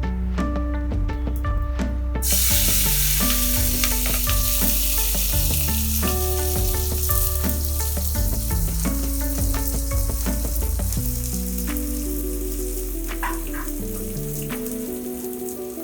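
Food hitting hot oil in a pan and frying with a loud sizzle that starts abruptly about two seconds in, then eases off slowly, with occasional scrapes of stirring. Background music plays throughout.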